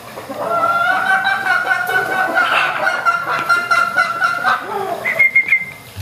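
Gamecock crowing one long, drawn-out crow lasting about four seconds, held on a steady pitch and falling off at the end. A short higher call and a few sharp clicks follow near the end.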